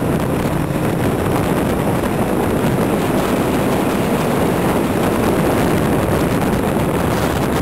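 Motorcycle engine running steadily at speed, heard from on board the bike, with heavy wind rush on the microphone.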